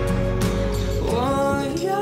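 Background music of held, sustained notes; about a second in, the notes slide upward in pitch and the bass drops away.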